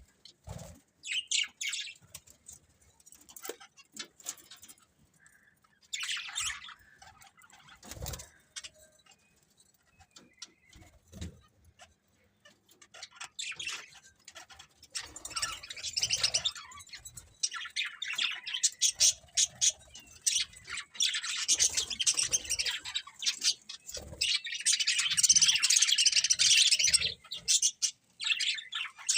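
Budgerigars chirping: scattered short calls at first, building about halfway into continuous, loud chattering.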